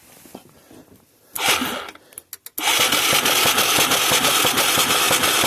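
The electric starter of a mid-1980s Yamaha Moto 4 YFM200 ATV cranks the engine over with the spark plug removed, during a spark test. A short burst and a few clicks come first, then a steady, fast-ticking cranking noise from about two and a half seconds in.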